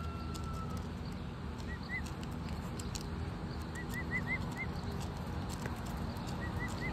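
Emu chicks giving short, high chirping whistles in small runs: two, then five, then three. Light clicks of beaks pecking pellets in a plastic cup come through over a steady low rumble.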